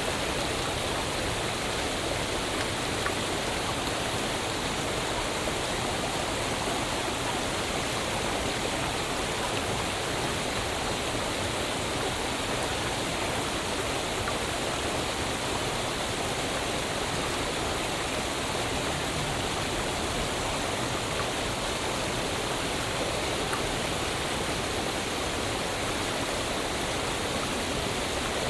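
Waterfall: water falling and rushing in a steady, unbroken roar of noise, even and unchanging.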